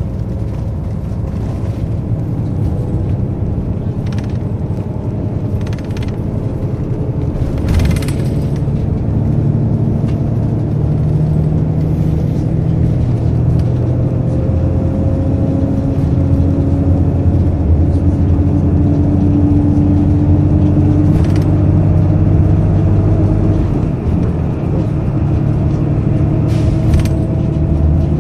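Steady road and engine rumble heard from inside a moving vehicle at highway speed, with a low hum that slowly rises in pitch in places. There are a couple of brief knocks, about eight seconds in and near the end.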